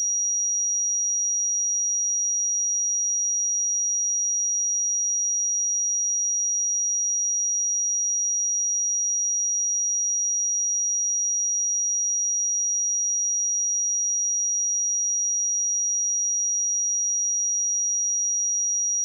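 A steady, unchanging pure sine-wave test tone at 5747 Hz, a single high-pitched whistle-like note for checking speakers or headphones.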